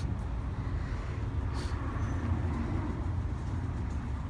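Steady low rumble of outdoor background noise, with a faint click about a second and a half in.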